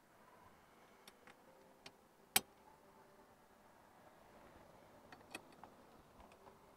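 Faint, scattered metallic clicks and taps of small bolts and a bracket being handled and started by hand into the door panel, with one sharper click about two and a half seconds in and a few quick clicks near the end.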